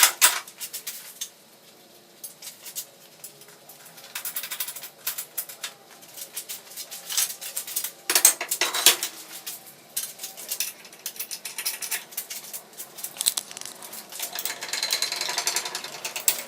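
Irregular metal clinks, clanks and rattles of steel parts being handled, with louder clanks at the start and about eight seconds in.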